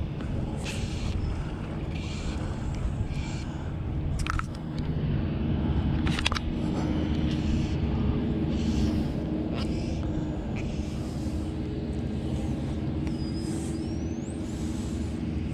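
Steady low drone of a distant engine. A couple of sharp clicks come about four and six seconds in, and a short rising whistle near the end.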